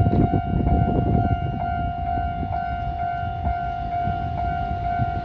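Level-crossing warning bell ringing, a steady electronic tone that repeats about twice a second, over the low rumble of a train.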